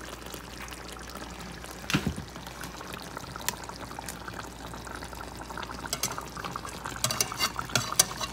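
Fish simmering in sauce in a pan, with a steady bubbling. A metal spatula and fork knock once about two seconds in, then click and scrape against the pan near the end.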